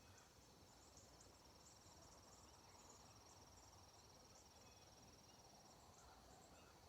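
Faint, steady high-pitched trilling of crickets in the garden, a continuous pulsed note that breaks off about a second before the end.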